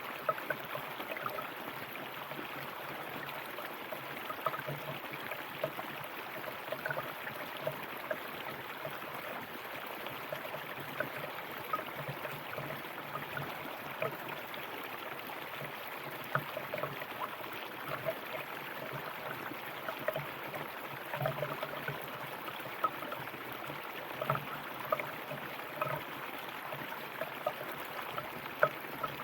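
River water flowing steadily over rocks, a continuous rushing babble with many small splashes and gurgles.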